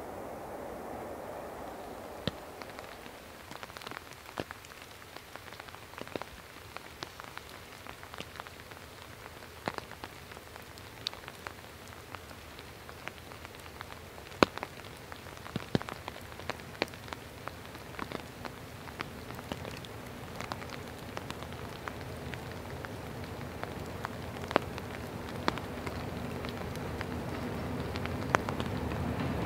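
Rain falling steadily, with scattered sharper ticks of drops landing close by. From about two-thirds of the way through, the low hum of a diesel train's engine comes in and grows steadily louder as it approaches.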